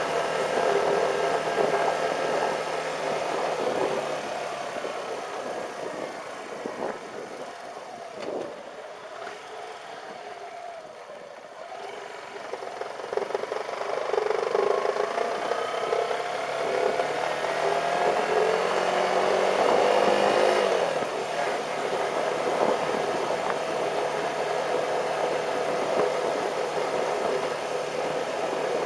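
Motorcycle engine and road noise while riding. The engine eases off and runs quieter for several seconds, then its pitch rises as it accelerates, dropping suddenly about two-thirds of the way in before running on steadily.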